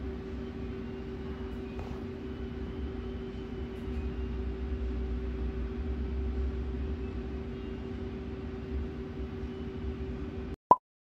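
Steady mechanical hum with a low rumble and two faint steady tones. Near the end, one short loud beep, then the sound cuts out.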